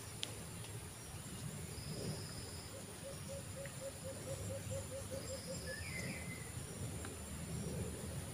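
Insects buzzing steadily, with a high chirping burst repeating about every three seconds over a low background rumble. About three seconds in, a run of about a dozen quick low notes, roughly four a second, goes on for some three seconds, and a short bird chirp comes near six seconds.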